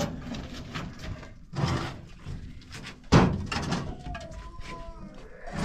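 Two heavy thuds about a second and a half apart, the second louder, then faint high calls near the end.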